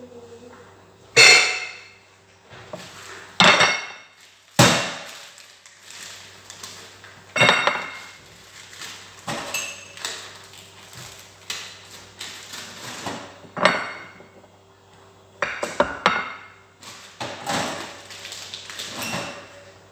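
Kitchen clatter: metal pots, lids and dishes knocked and set down, about ten irregular clanks and clinks, some ringing briefly, the loudest about a second in. A steady low hum runs underneath.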